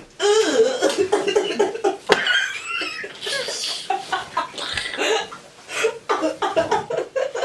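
Wordless vocal sounds: laughing, with some coughing. There is a sharp click about two seconds in.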